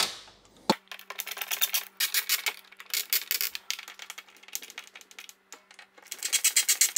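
Ratcheting screwdriver clicking in quick bursts of strokes with short pauses, as long Torx screws are driven by hand into the wooden door panel. A faint steady hum runs underneath from about a second in.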